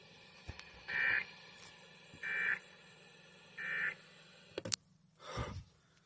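Weather alert radio giving three short electronic beeps, evenly spaced about a second and a half apart. A couple of clicks and a brief rustle of handling follow near the end.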